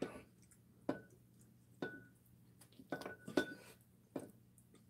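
A handful of light clicks and clinks, some with a brief ring: chopsticks and tableware knocking on a ceramic plate while sauced fried chicken is eaten. The loudest clicks bunch together a little past the middle.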